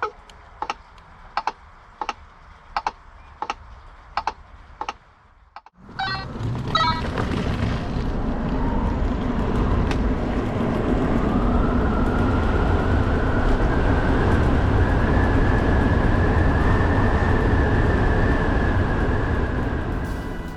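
NIU NQi Sport electric moped's turn-signal indicator ticking steadily, about eight ticks. After a cut, the moped is ridden: loud wind and road noise, with an electric motor whine that climbs in pitch and then holds steady.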